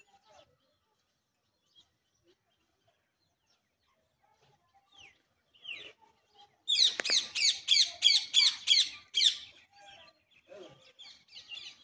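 A bird calling: after a quiet stretch, a quick run of about ten sharp, high, downward-sliding chirps, about four a second, lasting nearly three seconds, followed by a few fainter chirps.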